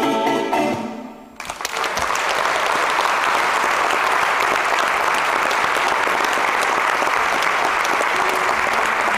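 The last strummed chord of a Venezuelan cuatro rings and dies away, and about a second and a half in, an audience breaks into steady applause that carries on to the end.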